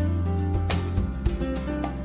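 Background instrumental music with a steady beat and held bass notes.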